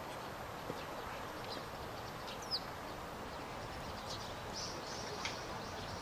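Birds chirping over a steady background hiss: one clear downward-sweeping chirp about two and a half seconds in, then a few short high chirps near the end.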